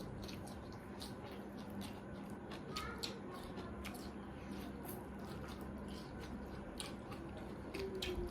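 Close-up eating sounds: chewing with many small wet clicks and smacks as chowmein noodles and boiled greens are eaten.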